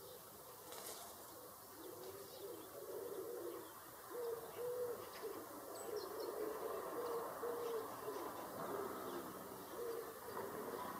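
A dove cooing in a series of low, repeated phrases, starting about two seconds in, with a few faint high chirps of small birds over it.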